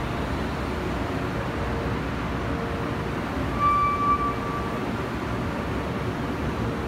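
Steady low rumble of a long escalator running, heard from on the moving stairs. About three and a half seconds in there is a short high tone lasting about half a second.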